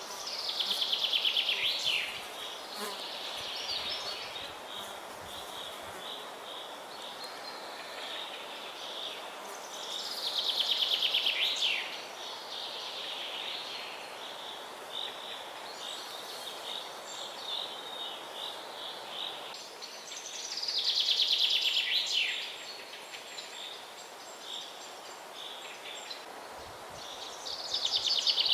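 Forest birdsong: a songbird repeats a fast trilled phrase of about two seconds, ending with a drop in pitch, roughly every ten seconds, over a steady high chirping in the background.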